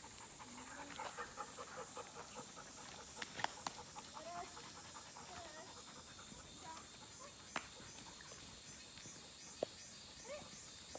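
A pack of dogs on the move: faint panting and short whines, with a few sharp clicks over a steady high-pitched insect buzz.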